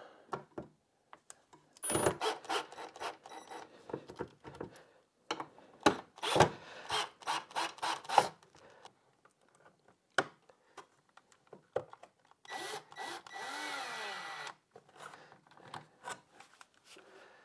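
Cordless drill driving screws in several short runs with pauses between, along with scattered clicks and knocks of parts being handled.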